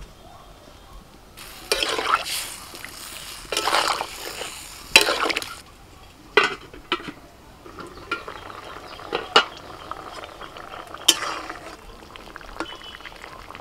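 Metal cookware clatter: a lid and a metal spatula knocking and scraping against an aluminium karahi, with several sharp clinks spread through, over the bubbling of a simmering vegetable curry.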